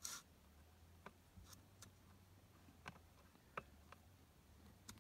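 Near silence broken by faint, scattered metallic clicks, about six of them with the sharpest about three and a half seconds in, as the chain of a Sterwins PCS2-35.3 chainsaw is tensioned on its bar with the combination wrench, the bar nuts still left loose.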